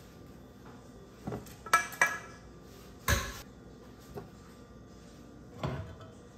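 Pots, pans and a glass pot lid handled and set down on a glass-ceramic stovetop: a few separate clanks and clinks, two ringing ones close together about two seconds in, the loudest knock about three seconds in, and one more clatter near the end.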